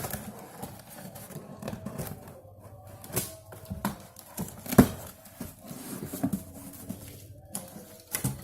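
A cardboard box and its packaging being opened and handled by hand: irregular rustling, crinkling and tearing with scattered taps and knocks. One sharp knock about five seconds in is the loudest.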